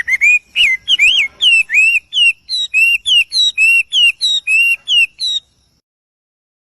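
A small bird chirping: a quick run of short, sliding high notes, about three a second, that stops abruptly about five seconds in.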